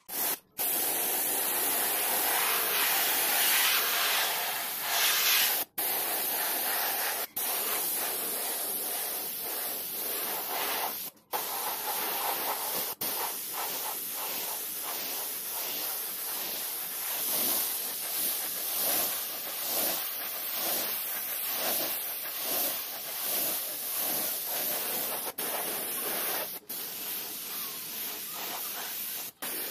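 Gravity-feed air spray gun hissing steadily as it sprays paint onto a helmet. The hiss is broken by a few very short gaps.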